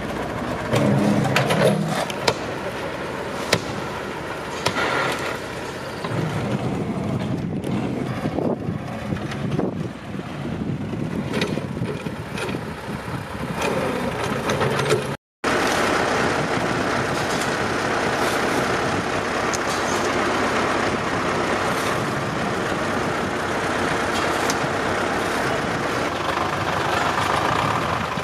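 Vehicle engine noise with scattered knocks and clicks. The sound cuts out abruptly for a moment about fifteen seconds in, then carries on steadily.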